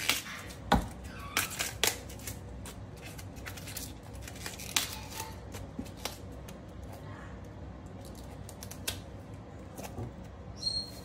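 Crisp, irregular snaps and cracks of leaves and stalks being broken off a raw cauliflower head by hand. The loudest snaps come in the first two seconds.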